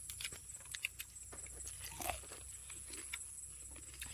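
Faint chewing and crunching on fried chicken: scattered short crunches and clicks, over a steady high-pitched whine and a low hum.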